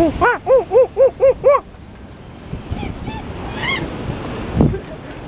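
Surf washing against rocks, with wind buffeting the microphone. About a quarter second in comes a quick run of six short, loud pitched calls, about four a second, each rising and falling. A few fainter, higher calls follow three to four seconds in.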